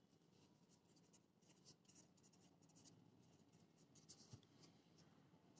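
Faint scratching of a pen writing on paper, in short strokes, with a couple of light ticks about four seconds in.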